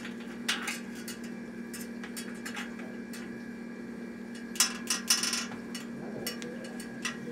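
Light metallic clicks and taps of a spoke key working on a spoke nipple as a bicycle spoke is tightened to true the wheel, with a denser run of clicks and scrapes about halfway through, over a steady low hum.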